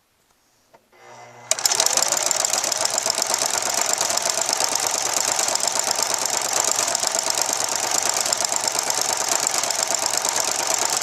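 Singer sewing machine fitted with a ruffler foot. After about a second its motor hums briefly, then the machine stitches steadily with a loud, rapid, even clatter as the ruffler pleats the fabric with each stitch.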